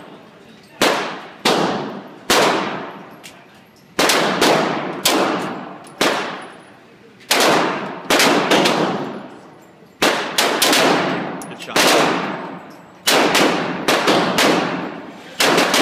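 Glock 26 9mm pistol firing repeated shots, in quick strings of two to four about half a second apart, with short pauses between strings. Each shot rings out in the reverberation of an indoor range.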